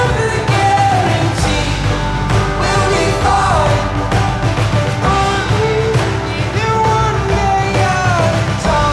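Background music: a rock/pop song with a sung melody over a steady beat and bass.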